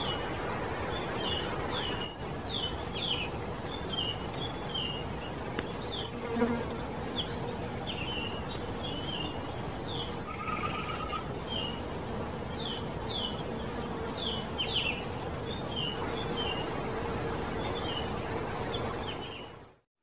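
Forest insects trilling: a high, steady buzz that pulses about twice a second, with a second, slightly lower buzz joining near the end. Short falling chirps repeat every second or so over it.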